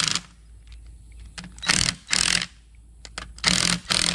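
Cordless drill run in short trigger bursts, two quick pairs about a second and a half apart, driving 10 mm bolts down snug on an electric drive unit's housing.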